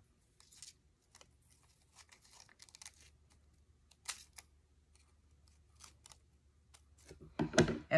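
Small scissors snipping through thin paper pattern sheet: a scatter of light snips and paper rustles. A short burst of voice comes near the end.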